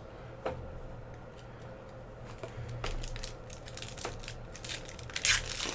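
Trading cards and card packs being handled: scattered light clicks and rustles about a second apart, the loudest near the end, over a low steady hum.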